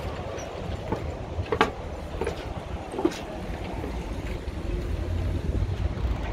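Wind rumbling on the microphone, strengthening after about four seconds, with a few sharp knocks and clicks at irregular intervals.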